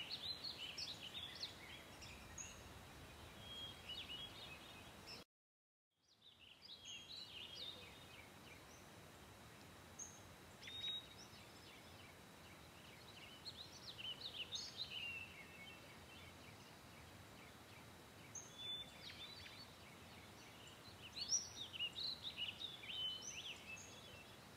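Faint chirping of several birds in scattered bursts of short high calls, with a brief drop to silence about five seconds in.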